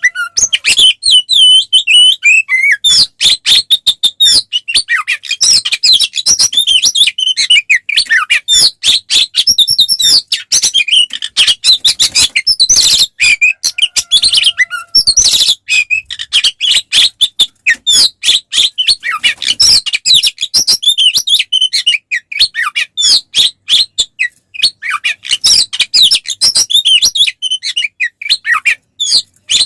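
Oriental magpie-robin (kacer) singing non-stop in full aggressive fighting song. It is a rapid, varied stream of high whistles, trills and sharp chattering clicks with hardly a pause, the kind of song used to provoke other males.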